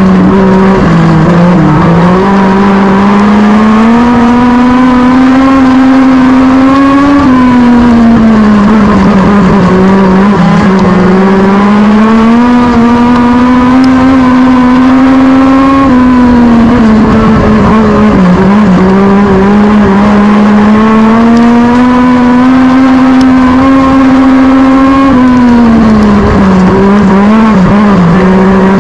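Legend car's Yamaha motorcycle engine, heard from inside the cockpit while racing laps on a dirt oval. The revs climb along each straight and drop off into each turn, three times about nine seconds apart.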